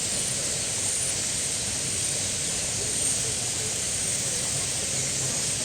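A large flock of starlings chirping all at once: a dense, steady wash of overlapping calls with no single bird standing out.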